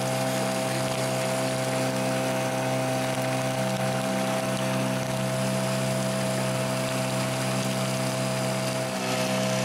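Small outboard motor pushing a rowboat, running steadily at a constant throttle with an unchanging engine note, over a hiss of water.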